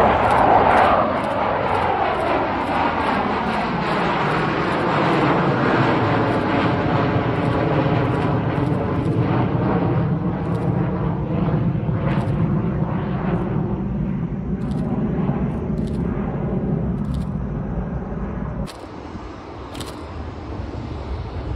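Boeing 737-200 climbing out at takeoff power overhead, its Pratt & Whitney JT8D low-bypass turbofans giving a loud jet roar. It is loudest at first, with a falling sweep in pitch, then settles into a steady low rumble that fades slowly. About three seconds before the end it cuts off suddenly to a quieter, distant jet sound.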